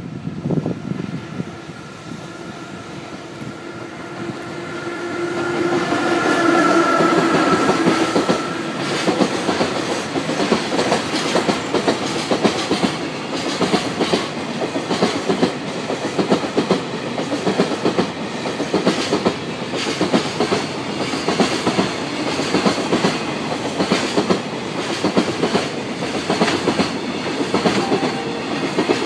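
A freight train hauled by a JR Freight EF66 electric locomotive passes close by. The sound grows as the locomotive approaches and goes past, with a steady hum about five to eight seconds in. Then the container wagons' wheels clack over the rail joints in a steady rhythm.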